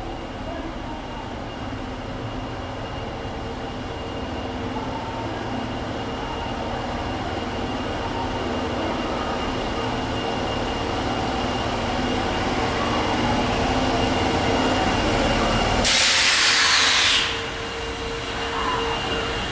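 Osaka Metro 25 series subway train approaching slowly along the platform, its running noise growing steadily louder. About 16 seconds in, a loud burst of compressed-air hiss lasts about a second and a half, and the train keeps rolling in after it.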